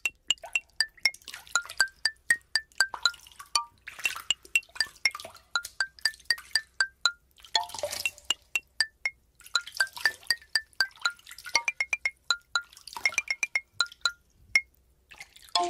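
Tiny plastic micro building bricks clicking and clinking, several light ticks a second, each with a short bright ping, as pieces are picked from a loose pile and pressed together. A few brief rustles come in between.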